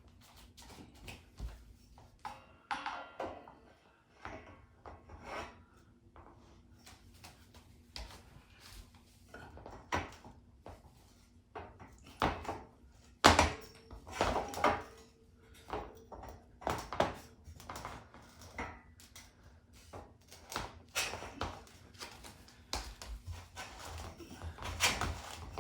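Thule Canyon XT cargo basket frame sections being handled and fitted together: scattered knocks, clanks and rattles, the sharpest a single loud knock about halfway through.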